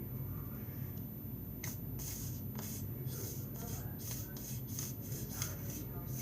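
Repeated short scraping strokes, roughly two a second, starting about a second and a half in, from handling slime ingredients. A steady low hum lies underneath.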